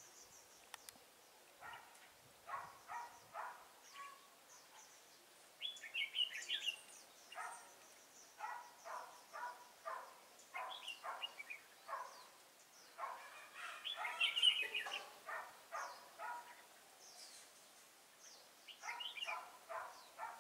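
Red-whiskered bulbuls singing: runs of short, clipped notes repeating every second or two, with brighter, higher chirping phrases about six, ten, fourteen and nineteen seconds in.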